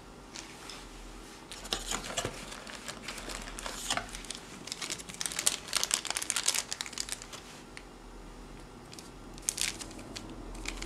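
Thin clear plastic bag crinkling as it is handled, in irregular bursts of crackle from about a second and a half in until about seven seconds in, with a short burst more near the end.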